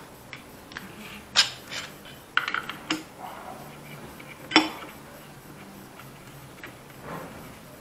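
Steel hand tools and engine parts clinking and knocking as they are handled on a workbench: a socket bar and wrench on an opened motorcycle engine, a string of separate sharp metal clinks, the loudest about four and a half seconds in.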